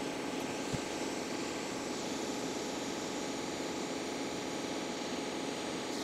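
Hot air rework station blowing a steady hiss of air at 60% airflow, reflowing the solder under a replacement HDMI port.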